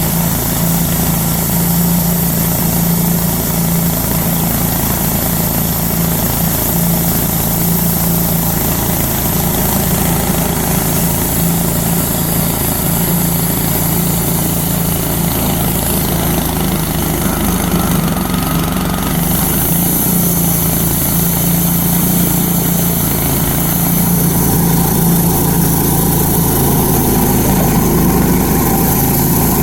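Wood-Mizer LT-10 band sawmill running steadily, its engine driving the band blade through a log at an even pace.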